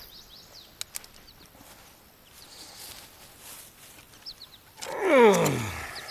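Faint bird chirps, then near the end a loud cry that slides steeply down in pitch over about a second.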